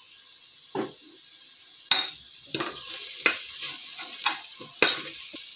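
A spoon stirring fried onions and spices in a pressure cooker pot: knocks and scrapes against the pot, with oil sizzling. The first couple of seconds hold only two knocks; about halfway through, steady stirring and sizzling begin.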